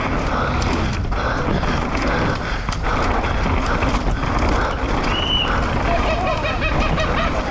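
Downhill mountain bike ridden fast over a dirt trail: tyres on dirt, wind on the helmet camera's microphone, and the chain and frame rattling with many sharp clicks over bumps. Spectators shout from about five seconds in.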